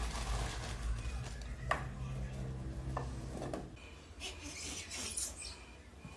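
Plastic bag rustling as frozen fries are shaken out of it into an air fryer basket, with a couple of light knocks. About two-thirds of the way through it gives way to quieter room sound.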